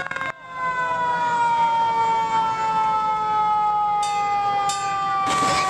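Antique fire truck's siren sounding one long tone that slowly falls in pitch. A rush of noise joins near the end.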